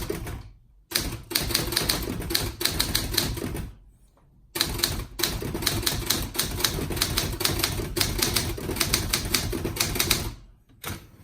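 Olympia SG-1 desktop manual typewriter being typed on in quick, even keystrokes: two long runs of key strikes with a short pause about four seconds in.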